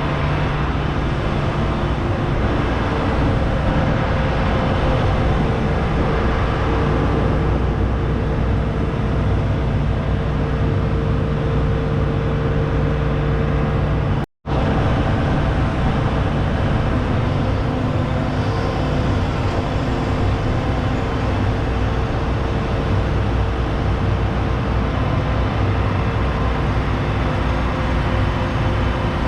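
A large six-cylinder diesel engine, the John Deere S790 combine's 13.5-litre six, running steadily at a constant speed. The sound cuts out for an instant about halfway through and resumes with a slightly different tone.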